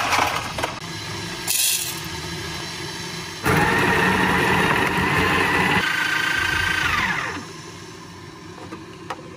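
Electric burr coffee grinder grinding beans: the motor starts about three and a half seconds in with a loud, steady whir, then is switched off and winds down with a falling whine. A couple of light knocks follow near the end.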